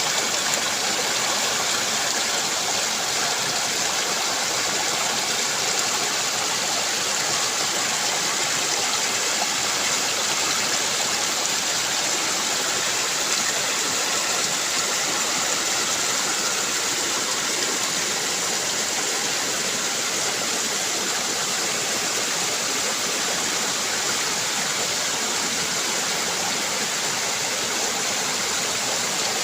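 Waterfall: falling water rushing steadily, an even hiss with no breaks or changes.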